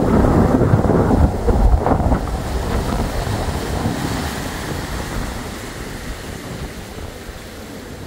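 Storm surf breaking and washing up a sandy beach in a loud, rumbling wash that fades gradually after the first couple of seconds, with wind on the microphone.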